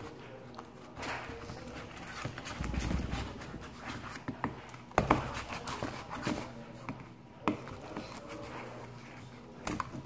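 A plastic spoon stirring sticky slime in a plastic bowl: irregular clicking and knocking of the spoon against the bowl, with a few louder knocks about halfway through and again near the end.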